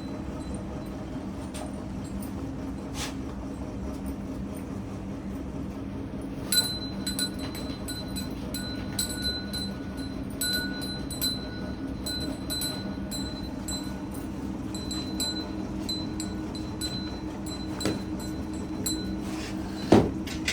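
Repeated bell-like metallic rings, short light strikes about one or two a second, starting about six seconds in, over a steady low hum; a single knock near the end.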